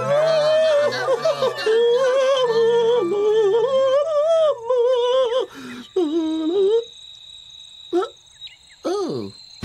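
A high voice singing a wordless, warbling song: one long wavering melody line with a strong vibrato, broken by two short pauses, that stops about seven seconds in; a few short swooping sounds follow near the end.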